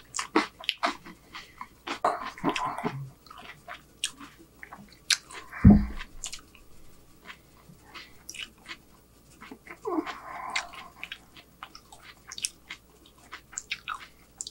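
Close-miked chewing of a mouthful of burger: wet mouth clicks and smacks, with a brief low grunt about six seconds in.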